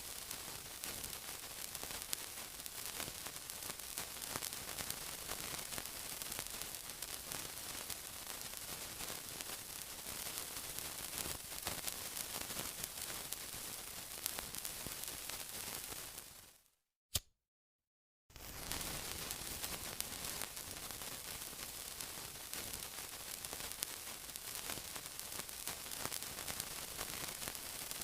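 Steady sizzling hiss dotted with fine crackles. A little past halfway it fades out into about two seconds of silence broken by one sharp click, then starts again abruptly.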